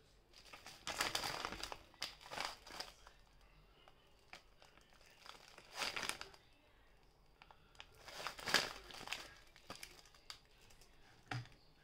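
Plastic packet of frozen garlic cubes crinkling as it is handled and opened, in several short bursts.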